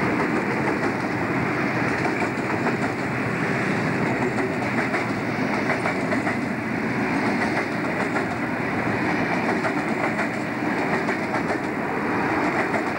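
Freight train of container and coal wagons rolling past close by: a steady rumble of steel wheels on rail, with rapid clicks and clatter from the wheels over the rail joints.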